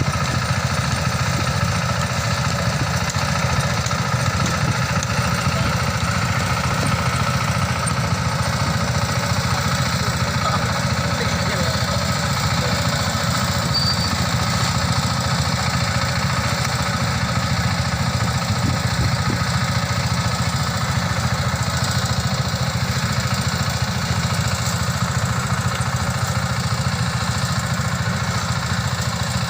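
Mini rice combine harvester's engine running steadily, with an even, rapid beat throughout.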